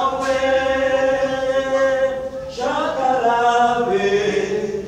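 Church choir singing, holding one long note, then starting a new phrase about halfway through.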